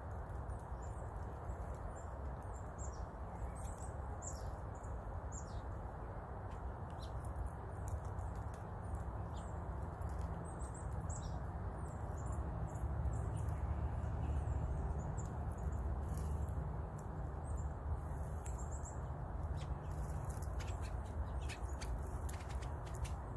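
Many brief, high-pitched small-bird chirps scattered over a steady low background rumble.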